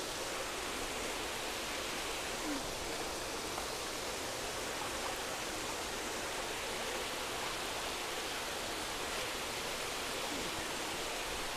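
Water falling from an inflow pipe into a fish vat, splashing steadily.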